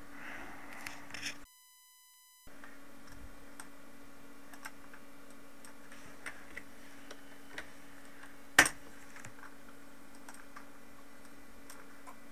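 Faint computer mouse clicks and keyboard taps, scattered and sparse, with one sharper click about eight and a half seconds in, over a steady low electrical hum. Near the start the hum cuts out for about a second, leaving only a thin buzz.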